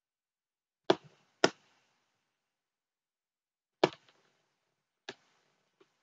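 Computer mouse clicks, sharp and separate with silence between: two loud ones about a second in, half a second apart, another near four seconds, then a softer one and a faint one near the end.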